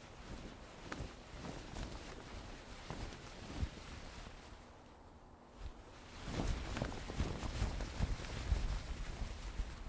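A sail flapping in the wind: a series of irregular cloth snaps and flutters, getting busier and louder about six seconds in.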